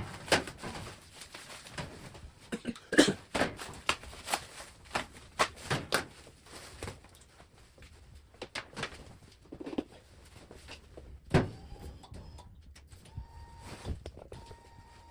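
Irregular knocks, clicks and thuds of parts and tools being handled while fitting a sink unit, the loudest knocks about three seconds in and again near eleven seconds. A faint steady whine starts near the end.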